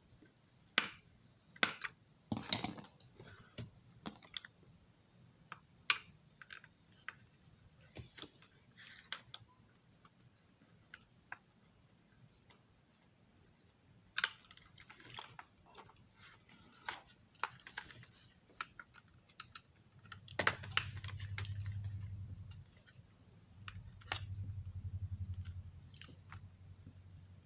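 Small sharp clicks, taps and rattles of tiny parts and a screwdriver being handled on a workbench. Near the end, a low steady hum sounds twice, about two seconds each.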